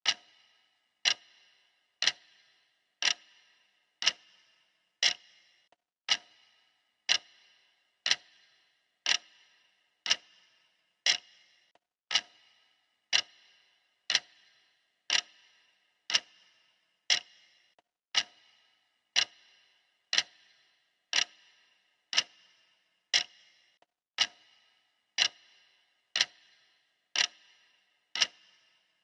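Clock ticking steadily, one sharp tick each second, each with a short ringing tail.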